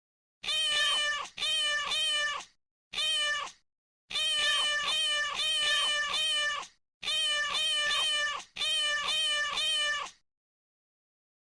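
Domestic cat meowing over and over in about six runs of high, wavering calls, broken by short silent gaps.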